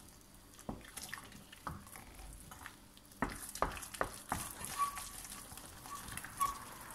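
Wooden spoon stirring thick cooked semolina in a stainless steel pot, beating in freshly added eggs, with irregular wet slaps and knocks of the spoon against the pot.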